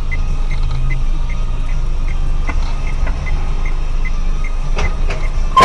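Steady car-cabin road and engine noise with a faint high tick repeating about three to four times a second. A sudden loud knock comes right at the very end.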